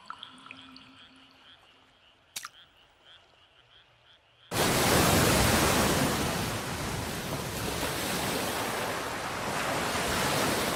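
Frogs croaking in a pond, fading out over the first couple of seconds, with one sharp click. About four and a half seconds in, a loud, steady rush of water starts abruptly and keeps going.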